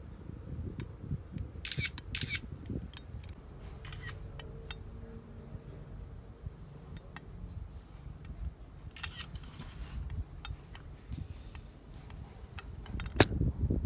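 Phone camera shutter sounds and small clicks from handling the sticker packaging, with one sharp knock near the end as the propped-up phone falls over onto the table.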